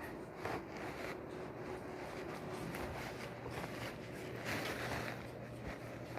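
Faint rustling and soft handling noises over a low steady hum.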